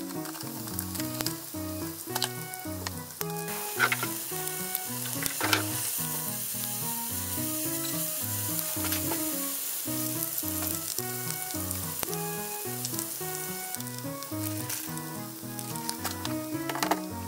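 Oil sizzling steadily as panko-coated hanpen and crab-stick rolls shallow-fry in a frying pan. A few sharp clicks of chopsticks against a pan as browned tofu is stirred, over soft background music.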